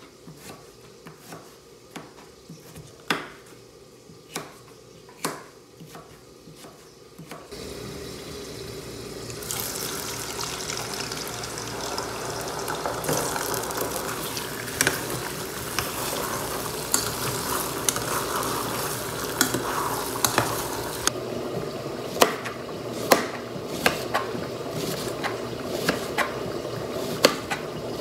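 Knife chopping raw potato on a cutting board, a knock every half second or so. About eight seconds in, the potato sticks go into a pot of hot fat and a loud, even sizzle starts. The frying goes on, quieter after about twenty seconds, with regular knife strokes slicing an onion over it.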